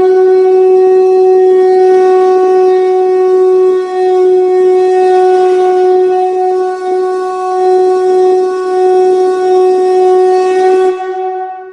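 A single long note from a reedy wind-instrument-like tone in the song's opening music, held at one steady pitch and then fading away near the end.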